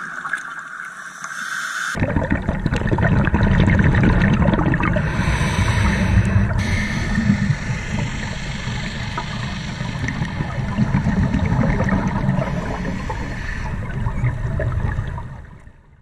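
Underwater sound picked up by a GoPro inside its dive housing: a thin hiss at first, then about two seconds in a deep, muffled, crackling bubbling, typical of scuba regulator exhaust bubbles. It fades out near the end.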